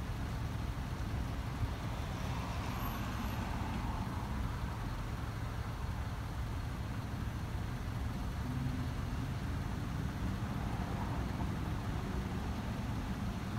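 Steady low rumble of a car engine idling, heard from inside the cabin.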